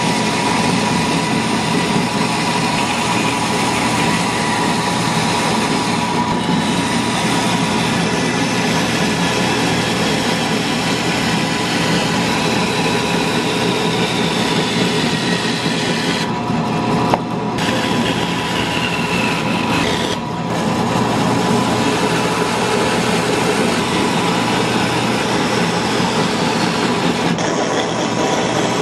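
Band saw running and cutting through a thick block of hardwood: a steady rushing blade noise over a constant motor whine, with one sharp click a little past halfway.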